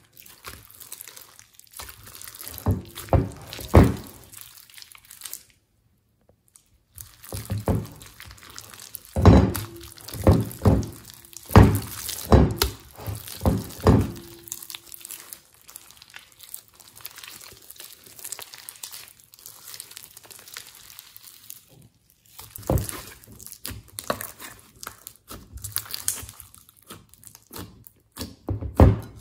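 Hands stretching, squeezing and kneading a large mass of thick slime, making sticky wet clicks and pops in quick clusters with short pauses between them.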